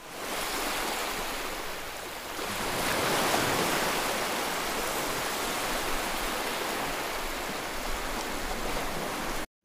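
Water rushing and splashing in a swimming pool: a steady wash of noise from the wall spout pouring in and the churned water, swelling a little about two and a half seconds in.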